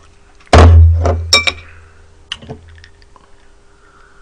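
A heavy thump on the tabletop about half a second in, with a deep boom that dies away over a couple of seconds, then a drinking glass clinking with a short ring, and a few light clicks of tableware as the glass is picked up.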